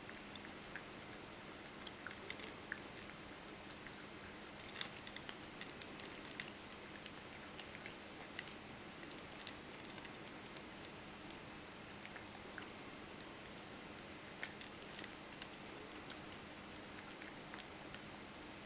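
Ragdoll cat chewing and crunching dry kibble from a stainless steel bowl: faint, irregular crunches and clicks.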